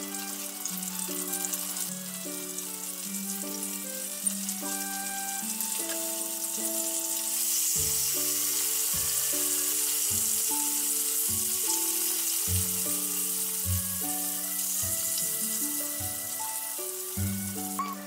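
Karaage-style coated kurumafu (wheat gluten) rings sizzling in oil in a frying pan, the sizzle growing louder about halfway through. Background music with a simple melody plays along.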